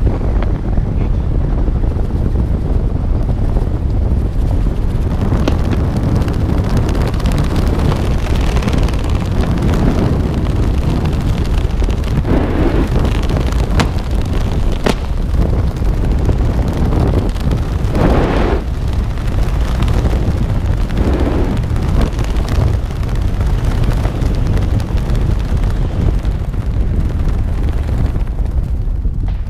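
Steady wind rushing over the jumper's camera microphone during a descent under an open parachute canopy, swelling louder a few times in the middle.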